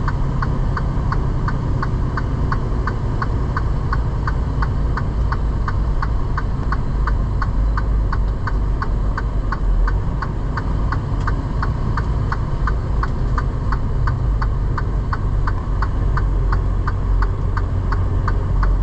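Inside a semi-truck's cab: steady engine and road rumble with the turn-signal indicator ticking evenly, a little over two ticks a second, as the truck readies for a right turn.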